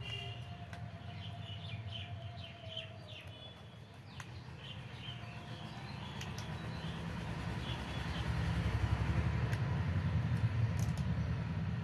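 Small birds chirping in short quick notes through the first half, over a steady low rumble that grows louder in the second half.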